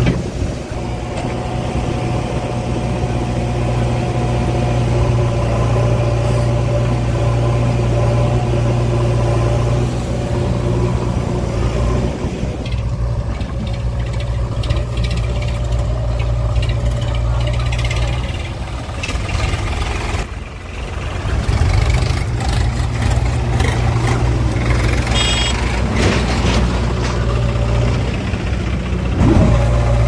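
Diesel engines running steadily: a JCB 3DX backhoe loader at work and farm tractors close by. The sound dips briefly about twenty seconds in, then the engine note comes back fuller.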